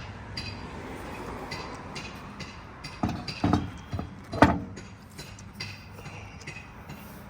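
Scattered metallic clinks and knocks as a wheel is fitted back onto a car's hub and the lug nuts are put on by hand, with two louder thumps about three and a half and four and a half seconds in.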